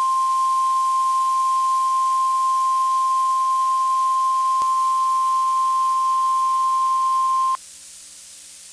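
NOAA Weather Radio 1050 Hz warning alarm tone, broadcast as the station's weekly alarm test: one steady, loud, high tone that cuts off suddenly about seven and a half seconds in, leaving faint radio hiss.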